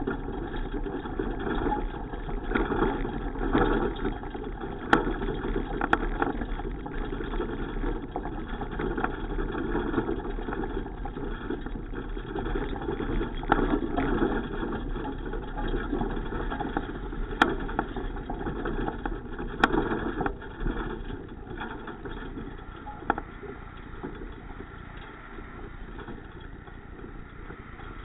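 Steady rumbling wind and road noise of a bicycle ride, with a few sharp clicks or rattles; it eases a little after about 21 seconds.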